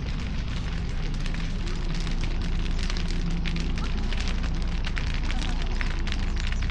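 Dry grass burning in a controlled hillside grass fire: a dense, irregular crackling and popping over a steady low rumble.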